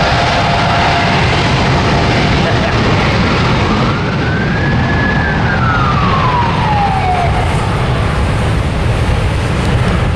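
Boeing 787 Dreamliner jet airliner's engines at takeoff power, a loud steady roar as it departs. Partway through, a single tone rises and then falls back over about three seconds.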